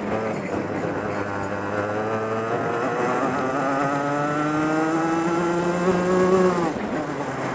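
Racing kart engine heard on board, accelerating: its note holds low for about two seconds, then climbs steadily for about four seconds before dropping sharply near the end as the throttle is lifted.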